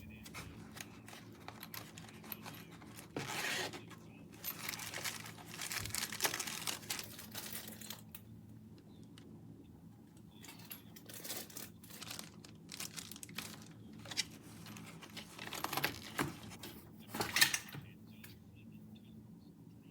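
Packaging being handled: paper or plastic rustling and tearing in irregular bursts, busiest a few seconds in and again near the end.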